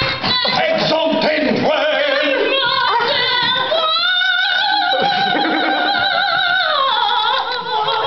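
A woman singing in operatic style with wide vibrato, holding one long note from about four seconds in, then dropping lower near the end.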